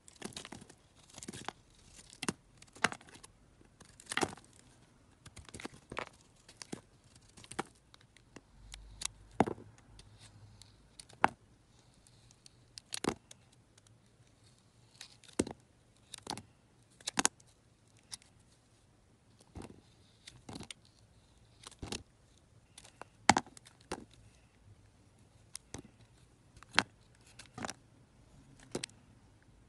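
Snap-off utility knife blade slicing through bars of soap: a series of crisp cracks as each piece breaks away, about one a second and unevenly spaced, with the loudest crack about three-quarters of the way through.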